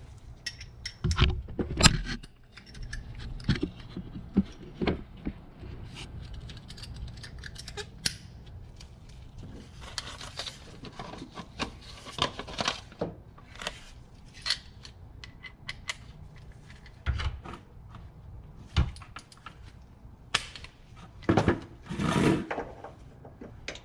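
Metal hand tools, a 3/8-inch drive ratchet and socket, clinking and rattling in irregular clicks and knocks as they are handled, with a few louder clanks.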